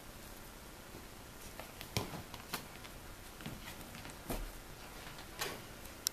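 Two small dogs scampering at play: scattered soft taps and scuffs of their paws, a few at a time, with no barking.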